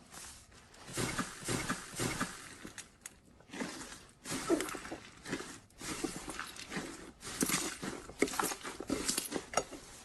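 Slime being squeezed and pressed: uneven bursts of wet squishing with small crackling pops, one every half second to a second.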